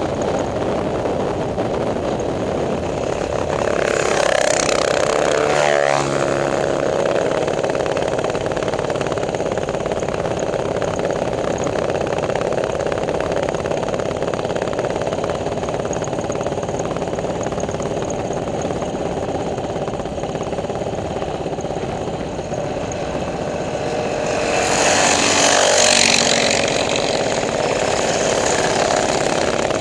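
Small single-cylinder minibike engine running steadily at riding speed, with wind rush. Twice, about 4 seconds in and again, louder, near 25 seconds, another small engine swells up and falls in pitch as it passes close by.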